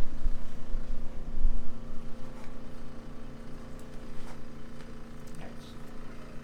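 A steady mechanical hum runs throughout. A few low thumps come in the first second or two, and faint clicks follow later.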